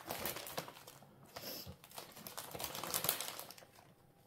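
Small plastic zip-lock bags of diamond painting drills being handled and shuffled, crinkling with many small irregular clicks.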